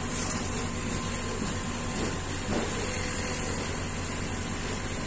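Steady low mechanical hum over a constant hiss, from a motor running without pause.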